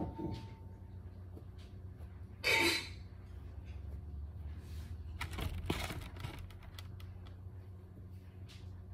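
Soft rustling and handling of a plush toy's fluffy fur as it is pulled off, with a louder rustle about two and a half seconds in and another around five to six seconds in, over a steady low hum.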